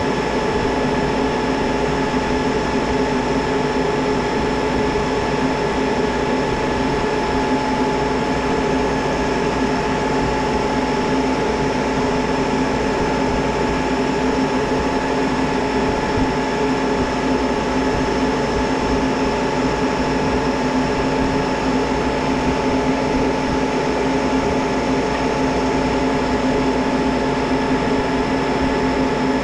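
Monarch 10EE lathe running steadily, its spindle turning a steel bar while the carriage slowly power-feeds the tool through a light finishing cut. It is an even hum with several constant tones, unchanged throughout.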